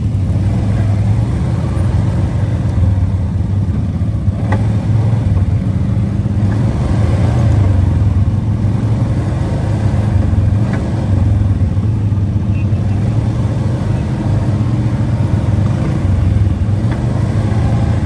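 ATV engine running steadily while riding, a continuous low drone.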